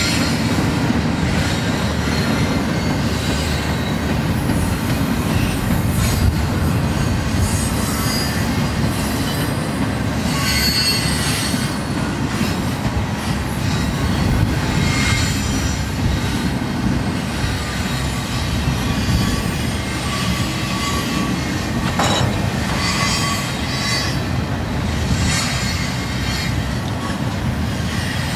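Freight train of double-stack container well cars rolling past in a steady, loud rumble of wheels on rail, with high-pitched wheel squeal coming and going.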